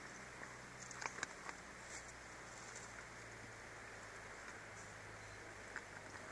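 Quiet steady background hiss with a low hum, and a short cluster of faint clicks about a second in.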